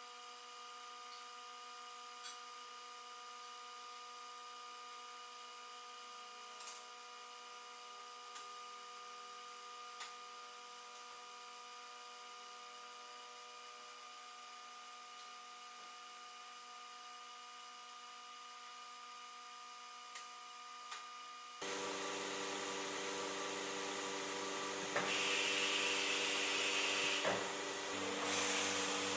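Leister SeamTek hot-air seam welding machine running, its blower and drive giving a steady hum with several fixed whining pitches and a few light clicks. About three quarters of the way in it abruptly gets louder and more rushing, and it steps up again shortly after.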